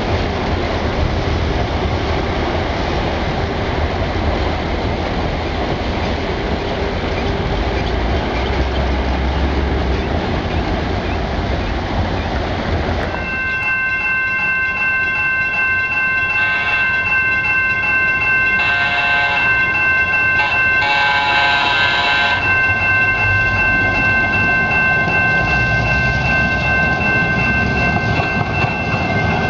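San Diego Trolley light-rail cars running along the track, a steady rumble of wheels and motors from red Siemens-Duwag U2 cars. About halfway through the sound changes to a steady high whine from a passing trolley, with three short louder sounds.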